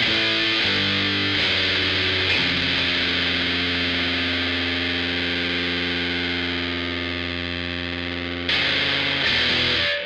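A Squier VM Jazz played through a Pelican Noiseworks Pelitaur fuzz pedal into an AC30 amp modeler, heavily distorted. A few quick notes give way to a chord held and slowly fading for about six seconds; then comes a fresh strum near the end, which cuts off sharply.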